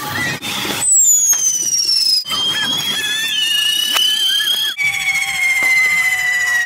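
Whistling firework fountains on devils' fire torches: three long, shrill whistles one after another over a hiss of sparks. The first is high and falls in pitch; the next two are lower and steadier, and each starts and stops abruptly.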